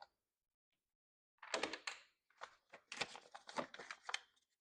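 Thin rip jig's packaging being opened by hand: a short burst of rustling and clattering about a second and a half in, then a run of small irregular clicks and taps.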